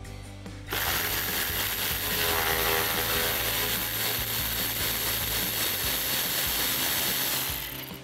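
Milwaukee cordless power ratchet running to back out an 8 mm screw, starting just under a second in, running steadily for about seven seconds, then stopping.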